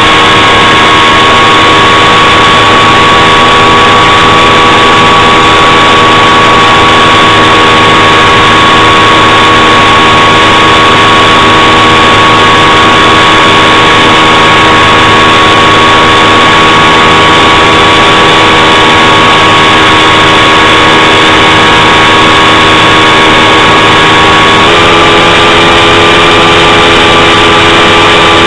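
Propeller aircraft engine running steadily, heard from on board and very loud, with a steady whine-like tone over the engine note. About 25 seconds in, the engine note steps up slightly in pitch.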